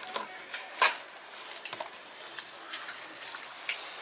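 Fillet knife cutting along the backbone of a whitefish on a plastic cutting board: small scrapes and clicks of the blade and flesh against the board, with one sharper tick a little under a second in.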